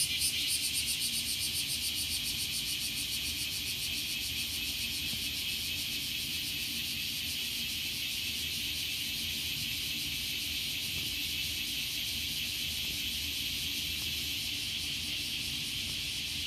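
Cicadas buzzing in a summer chorus: a fast pulsing at first that smooths into a steady, high buzz within a few seconds.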